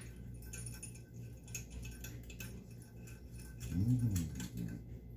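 Light clicks and rattles of small hardware and tools being handled, over a steady low hum. About four seconds in there is a brief low hum or grunt, rising then falling in pitch.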